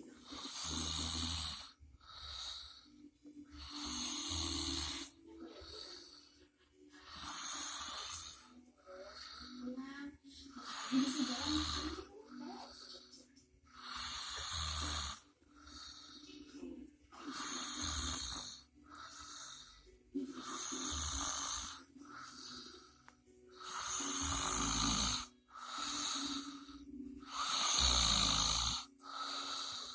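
A sleeping person snoring in a slow, even rhythm: a loud, rasping snore about every three and a half seconds, some with a deep rattle, each followed by a softer breath out.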